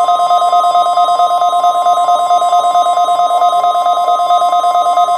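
NOAA Weather Radio warning alarm tone, the 1050 Hz alert signal, sounding loud and steady at one unchanging pitch. It cuts in suddenly at the start, breaking off the broadcast speech, and signals the weekly test of the alarm system.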